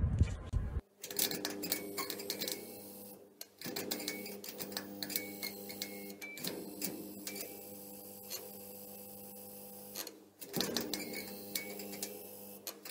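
Flickering neon sign sound effect: a steady electrical buzz with irregular clicks and crackles, cutting out briefly twice. It follows a short low rumble that cuts off about a second in.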